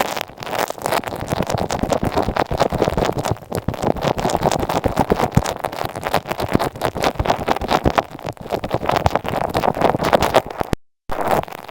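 Close-up scratching and crackling right on an earphone microphone: a dense, fast run of rough rubbing ticks, broken off by a brief cut near the end.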